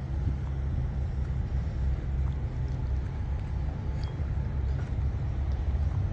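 A combine harvester's engine running steadily at idle, a low even rumble with a few faint clicks over it.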